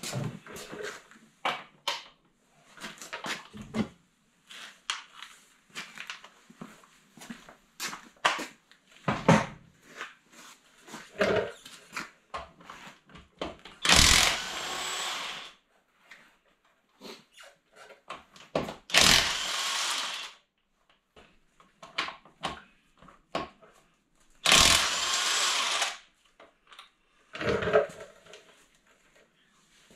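Cordless impact wrench spinning off wheel lug nuts: three runs of about a second and a half each, a few seconds apart. Clinks and knocks of sockets and tools come between them.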